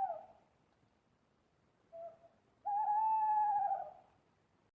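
Owl calling: the end of one call fades away at the start, then a short note about two seconds in, followed by one long steady hoot held for over a second that drops in pitch as it ends.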